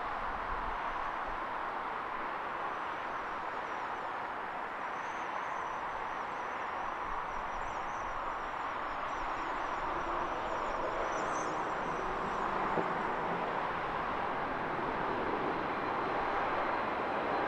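Distant jet airliner engine noise, a steady rush that grows gradually louder, with a steady whine setting in near the end as the aircraft draws closer.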